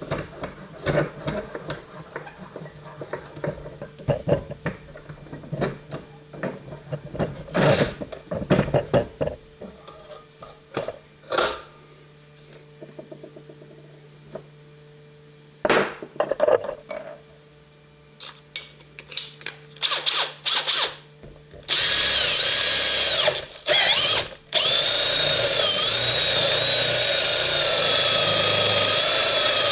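Clicks and clatter of a drill and bit being handled. About 22 seconds in, a power drill starts, cuts out twice briefly, then runs steadily with its pitch dipping as a freshly sharpened quad-tip auger bit bores into wood.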